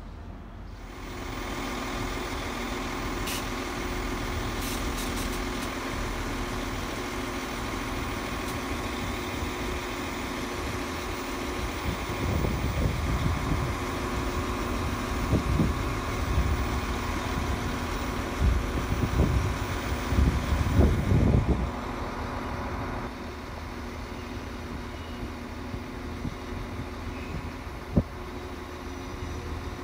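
Northern CAF Class 195 diesel multiple unit running close by, a steady engine drone with a whine on top. Low rumbles and thuds come and go through the middle, then the sound drops to a quieter hum about three quarters of the way through, with one sharp click near the end.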